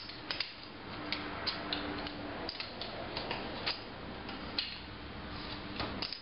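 Pin spanner ticking and scraping in the nut of a furler head swivel as the nut is wound onto its aluminium body: irregular light metal clicks, about a dozen.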